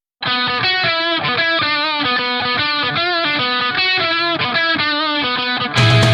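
Background rock music: a guitar riff with distortion starts abruptly, and near the end the full band with bass and drums comes in louder.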